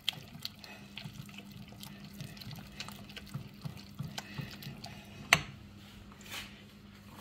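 A silicone whisk stirring thick béchamel sauce with melting cheese in a saucepan: soft, fairly quiet wet squelching and irregular light taps against the pan, with one sharper click a little after five seconds.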